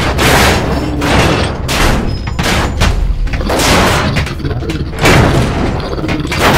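Sound effects of a giant-robot battle: a dense run of loud booms and crashing impacts, about two a second, over a steady deep rumble.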